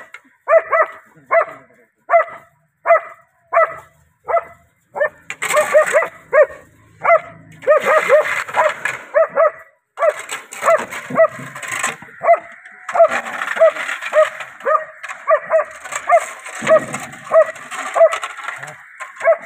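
German Shepherd barking repeatedly and agitatedly, about one or two barks a second at first, coming faster from about five seconds in. A rough, scuffling noise runs under the barks at times.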